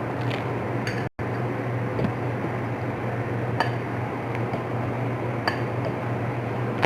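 Spoon clinking lightly against a bowl while eating soup, about six separate clinks, over a steady low hum.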